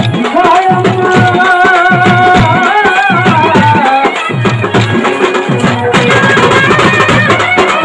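Loud Telugu folk music for a kolatam stick dance: a held, wavering melody over a fast, steady drum rhythm, with the dancers' wooden kolatam sticks clacking together in time.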